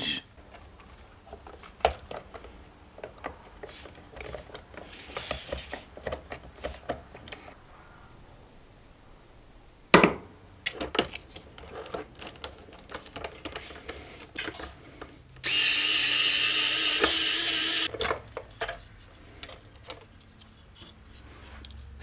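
Small clicks and rattles of parts and tools being handled while relays are pulled from a motorcycle's fuse and relay box, with one sharp clack about ten seconds in. Then a power drill runs steadily for about two and a half seconds and stops.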